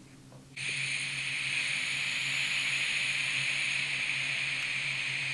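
Helium hissing out of a party voice-changer spray can's nozzle as it is pressed and breathed in. It is a steady hiss that starts about half a second in and lasts about five seconds.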